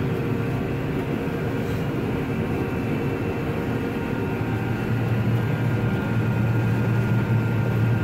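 Combine harvester running steadily while cutting wheat, heard from inside the cab: a continuous engine and machinery hum with faint steady whines above it, growing a little louder about five seconds in.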